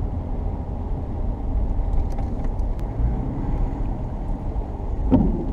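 A vehicle driving slowly, heard from inside the cab: a steady low engine and road rumble with faint scattered ticks, and a short louder sound near the end.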